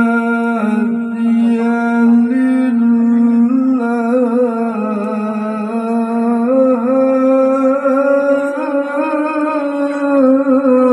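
A male qari reciting the Qur'an in melodic tilawah style through a microphone, holding long, wavering notes with ornamented turns.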